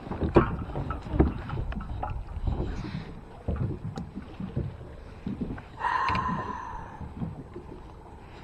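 Irregular knocks and bumps of gear and movement against a fishing kayak's hull, with a brief hiss about six seconds in.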